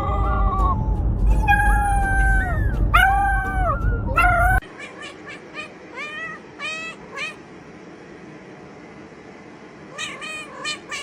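Cats meowing: several long, drawn-out meows over a low rumbling noise, then, after an abrupt cut about halfway in, a quick run of short meows and a few more near the end.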